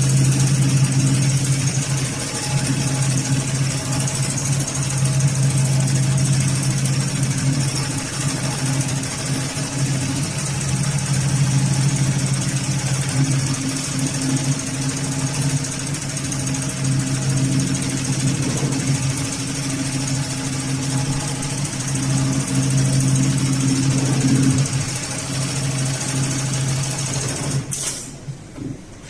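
Heavy-duty automatic pattern sewing machine running while it stitches lifting loops on thick polypropylene webbing: a steady motor hum that stops shortly before the end.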